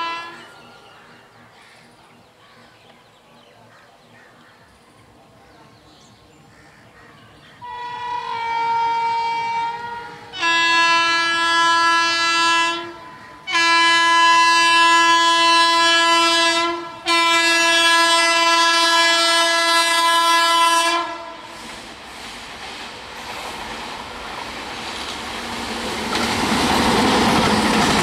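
Electric locomotive's multi-tone air horn sounding: one blast about eight seconds in, then three long blasts in quick succession, each about three seconds. After the horn stops, the noise of the approaching train grows steadily louder.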